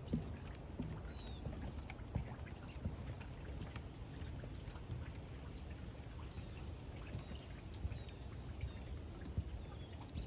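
Rainy forest ambience: an even wash of rain noise with scattered drips and ticks, and faint short high bird chirps now and then.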